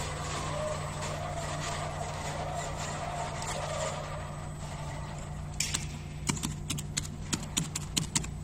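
About ten quick, sharp keyboard key clicks as a ten-digit login password is typed, starting about halfway in, over a steady low background hum.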